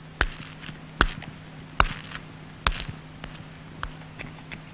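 Footsteps on a hard floor: four firm steps under a second apart, then a few fainter taps, over a steady low hum.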